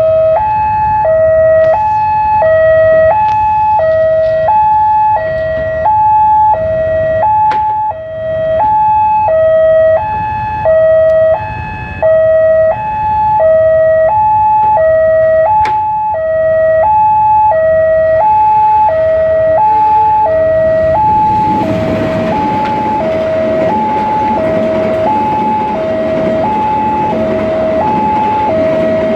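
Railway level-crossing warning alarm, an electronic two-tone alarm alternating high and low about once every one and a half seconds. About 21 seconds in, a passenger train passing over the crossing adds a loud rumble under the alarm.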